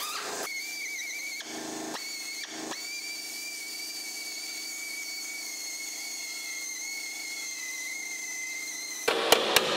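Pneumatic cut-off tool running with a steady high whine as its thin wheel cuts through the old floor pan of a 1959 VW Beetle, dipping briefly twice as it bites under load. Near the end come a few sharp blows on metal.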